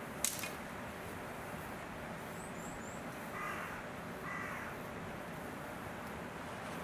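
A crow cawing twice, about a second apart, midway through, over steady background noise. A sharp click comes just after the start, and faint high chirps sound just before the caws.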